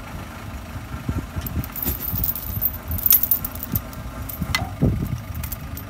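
Heavy steel chain clinking and rattling as it is handled and hooked up, with many sharp metallic clinks, over the low steady running of a backhoe loader's diesel engine.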